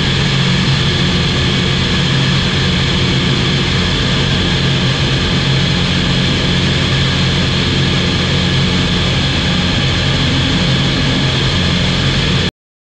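A SportCruiser light aircraft's Rotax 912 flat-four engine and propeller running steadily in cruise, with a steady low drone and a rush of air. The sound cuts off suddenly near the end.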